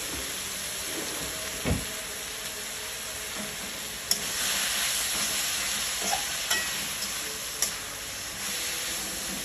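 Papaya flowers sizzling as they stir-fry in a wok, being stirred until they wilt, with a metal spatula scraping and clicking against the pan a few times. A dull thump about two seconds in.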